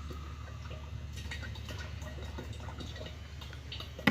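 Motor oil being poured through a spout into an engine's filler hole, a soft gurgling fill with small drips, ending in a single sharp knock.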